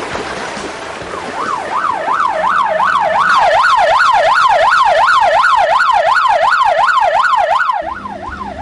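Ambulance siren in a fast yelp, rising and falling about three times a second. It starts about a second in and cuts off shortly before the end.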